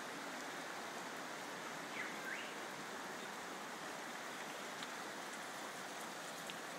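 Floodwater rushing steadily as a raging torrent, with a brief high chirp about two seconds in.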